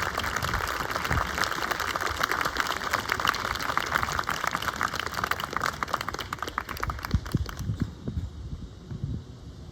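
Audience applauding with dense, even clapping that dies away about eight seconds in, leaving low wind rumble on the microphone.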